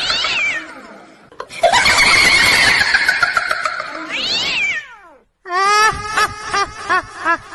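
A cat's long drawn-out yowl, ending in a sweep up and down in pitch, heard twice. It is followed about five seconds in by a rhythmic snickering laugh, 'hehehehe', about three pulses a second.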